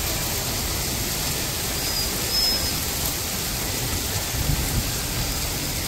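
Hailstorm: hail and rain falling steadily on paved ground, an even hiss and patter.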